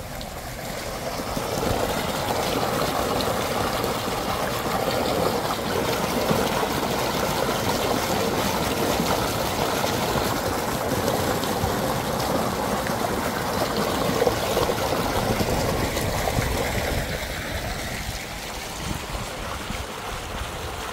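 Water gushing from a tubewell's discharge pipe and splashing into a concrete tank, a steady rushing splash. It builds over the first couple of seconds and eases slightly near the end.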